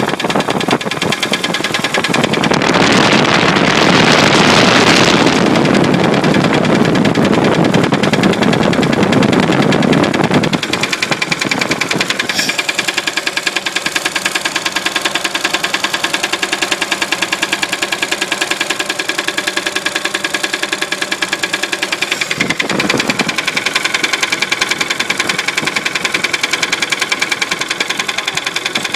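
1966 Studebaker car engine held at raised revs for several seconds, then dropping back to a steady idle about ten seconds in, with one short blip of the throttle about two-thirds of the way through. It is running with the knock the owner is chasing.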